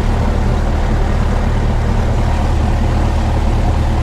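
Light single-engine airplane's piston engine and propeller idling with a steady drone, heard inside the cockpit.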